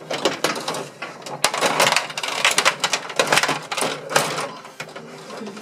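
Gretzky rod-operated table hockey game in fast play: control rods being pushed, pulled and spun, rattling in their slots, with plastic players and puck clacking against each other and the boards in a dense run of sharp clicks and knocks.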